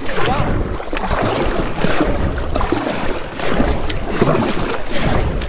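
Kayak being paddled hard: the paddle blades splash in with each stroke and water rushes along the hull.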